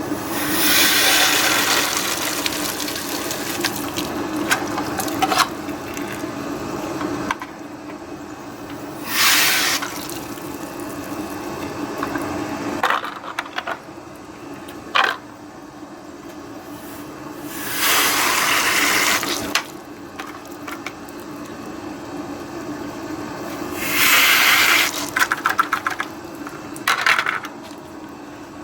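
Tap water running and splashing over a dishwasher part being rinsed in a sink, with several louder gushes and spells of quieter trickling.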